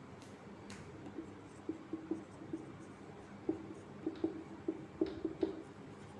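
Whiteboard marker squeaking and tapping in short, irregular strokes as a word is written out on the board.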